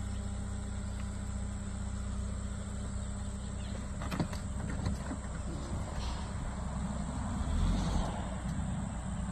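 Daihatsu Terios 4WD engine running low and steady as the car crawls slowly over rough ground, with a sharp knock about four seconds in and a swell of engine and tyre noise about eight seconds in.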